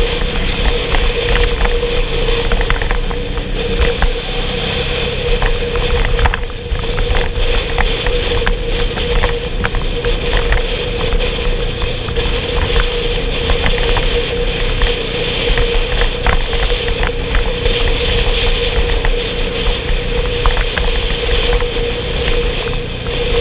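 A motorcycle riding at a steady cruise: its engine running with a steady hum, under the rush of wind and road noise on the bike-mounted microphone.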